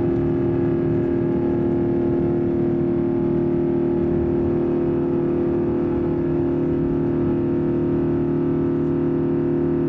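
Airbus A350-900's Rolls-Royce Trent XWB engines at takeoff thrust, heard from inside the cabin during the initial climb: a steady drone with several held tones over rushing air.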